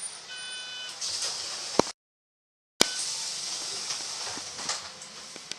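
City bus's air-operated doors working at a stop: a short electronic door chime, then a hiss of compressed air and a sharp clunk of the doors. After an abrupt dropout to silence of about a second, more air hiss and a few knocks follow.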